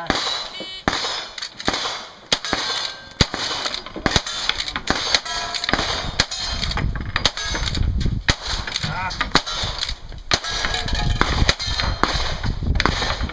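A stage of cowboy action shooting: a string of gunshots, about one every half second to second, with steel targets clanging between the shots. Wind rumbles on the microphone in the second half.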